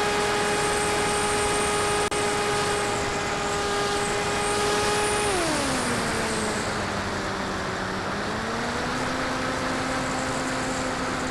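Brushless electric motor and propeller of a Grim Reaper XL RC plane (a 3530 1400 kV outrunner), picked up by the plane's onboard camera: a steady high whine over rushing wind. About five seconds in, the whine drops sharply in pitch as the motor slows, then rises a little and holds.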